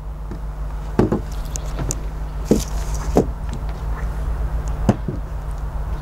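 About five light knocks and taps as a handheld plastic remote controller and a cardboard box are handled and set down on a wooden table, over a steady low hum.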